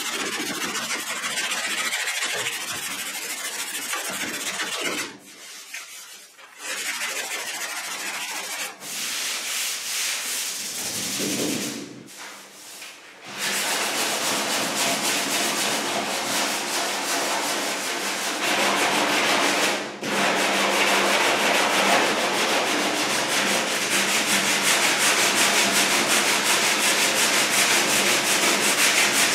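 Hand block sanding of filler on a car's steel body panel with a long sanding block: a steady back-and-forth rasping. It breaks off briefly twice in the first half, then runs on steadily through the second half.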